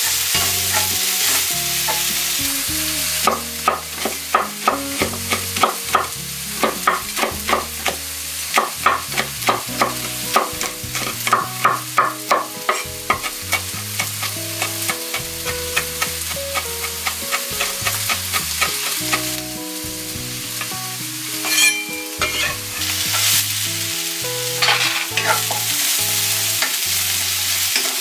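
Sliced onions sizzling in a hot oiled pan as they are stirred with a spatula. In between, a knife chops red chili peppers on a wooden cutting board in a quick, regular run of strokes, with a few more cuts later, before the sizzling returns near the end.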